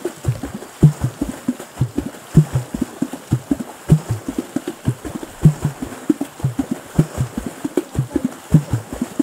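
Liquindi water drumming by three players: hands striking the river's surface in a fast, steady rhythm of low thumps and splashes, a heavier beat recurring about every second and a half.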